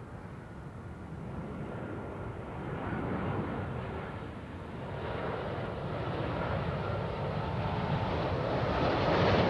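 Airbus A330-243 airliner on final approach, its Rolls-Royce Trent 700 turbofans rumbling and growing steadily louder as it nears, with a faint steady whine over the rumble.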